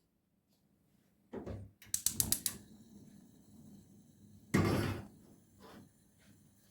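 Kitchen handling sounds: a knock, then a quick run of about six sharp clicks, and a short loud scraping rustle about halfway through, with a few light knocks after.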